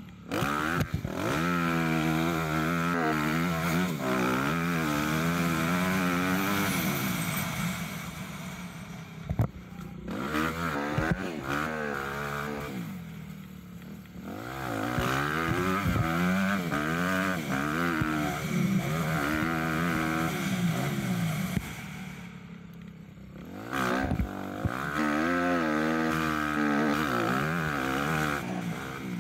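Small high-revving engines racing, their pitch rising and falling over and over as they rev, brake and accelerate, fading briefly a few times.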